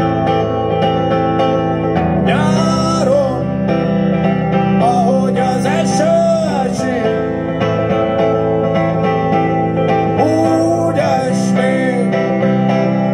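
Live pop song with a plucked guitar over steady sustained low chords. A wavering melody line comes in three phrases, about two, five and ten seconds in.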